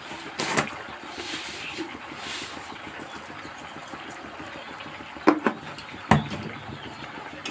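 A few sharp clicks and knocks of a utensil and bowl against a steel kadai of vegetable curry, three in all, over a steady low background rumble.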